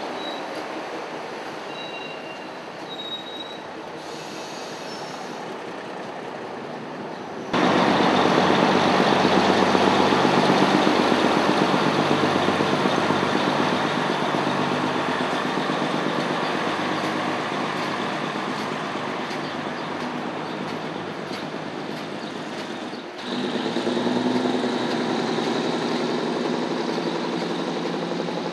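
Auckland suburban diesel multiple-unit trains running through a station, with engine noise and steel wheels on the rails. The sound jumps abruptly louder about a quarter of the way in and shifts again near the end, where one train passage gives way to another.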